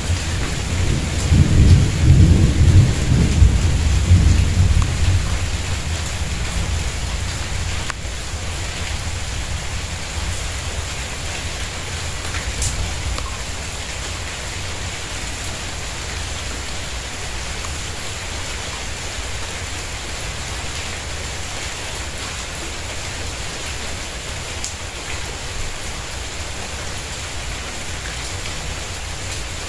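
Steady rain falling on a tiled courtyard. In the first few seconds a long, low rumble of thunder swells and then dies away.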